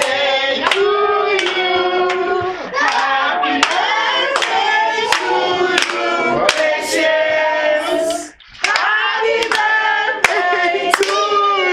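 A group of voices singing together over rhythmic hand clapping in a steady beat. The sound drops out briefly about eight seconds in, then the singing and clapping carry on.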